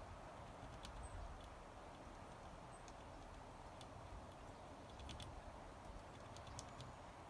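Faint, irregular taps and clicks with a brief faint high bird chirp about three seconds in, over a quiet background hiss.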